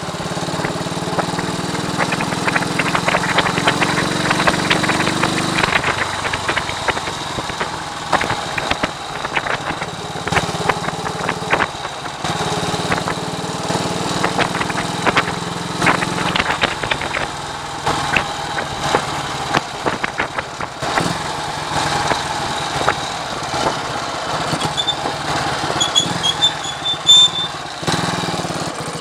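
1939 AJS Model 22 250 cc single-cylinder motorcycle engine running on the road, with heavy wind buffeting crackling on the microphone. The engine note drops about six seconds in and changes pitch a few times afterwards.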